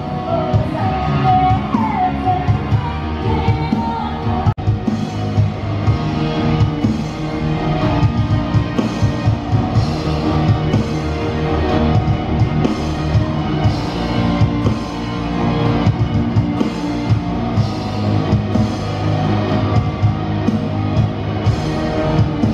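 Live rock band playing, with drums, electric guitar and a singer, with a momentary cut-out about four seconds in.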